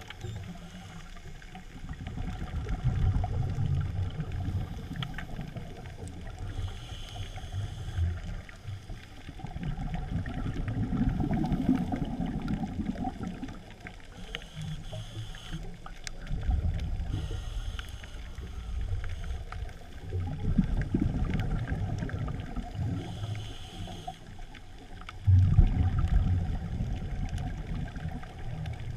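Underwater water noise as a diver swims: a low rushing rumble that swells and fades five or six times, with faint scattered clicks.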